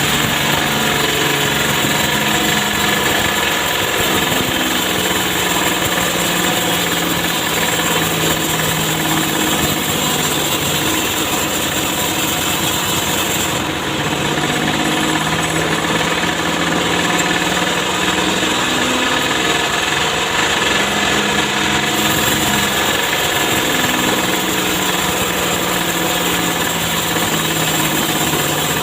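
Engine-powered saw running steadily and loudly, its engine note easing briefly a couple of times.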